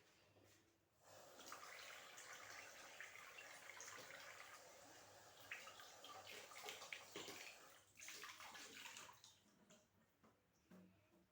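Quiet tap water running as whole garlic heads are rinsed under it, with small knocks and splashes as they are handled; the water comes on about a second in and stops near the end.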